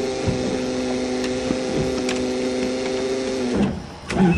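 A steady electric whine with even overtones comes from the stalled 1982 Toyota Cressida and cuts off abruptly about three and a half seconds in. A knock follows near the end.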